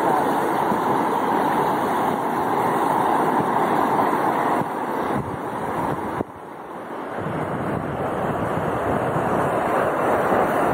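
Muddy floodwater rushing across a flooded dirt road, a steady loud rush of water that drops suddenly about six seconds in and then builds back up.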